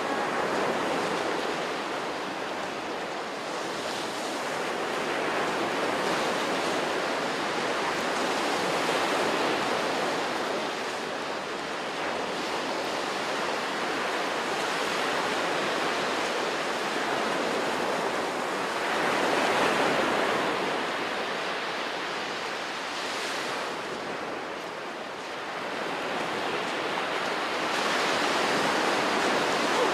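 Ocean surf breaking on a sandy beach: a steady wash of noise that swells and eases every several seconds as waves come in, loudest about two-thirds of the way through.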